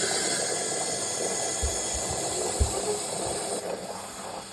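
Water rushing into a toilet tank with a steady hiss; the hiss thins out about three and a half seconds in. A few faint low knocks sound partway through.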